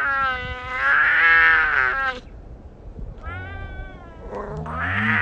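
A cat meowing in long, drawn-out calls. One call runs on for about two seconds and rises then falls in pitch; a shorter, higher meow follows about three seconds in, and another call begins near the end.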